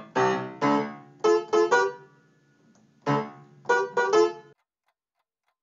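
Alesis Melody 61 electronic keyboard playing a short phrase of struck notes with a bright, banjo-like twang, in two runs, stopping a little past halfway.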